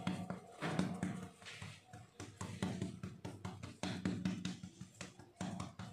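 Soft background music with a scatter of light taps running through it.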